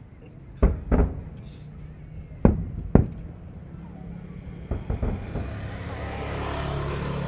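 Aerial firework shells bursting: four loud bangs in two pairs, then a few smaller cracks, followed by a steady noise with a low hum that swells towards the end.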